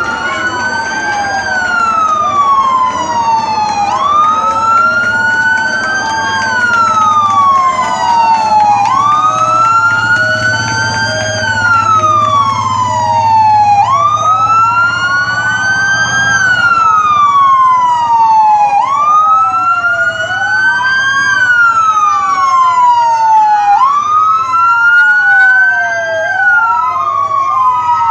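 Sirens of rescue emergency vehicles wailing, two or more of them out of step, each rising and falling about every two and a half seconds. A steady pulsing tone at two pitches sounds alongside them for about ten seconds in the middle.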